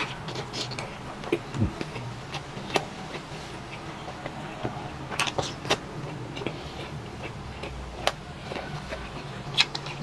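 Eating at a meal of bulalo soup: irregular sharp clicks and clinks of utensils against dishes, scattered over a low steady hum.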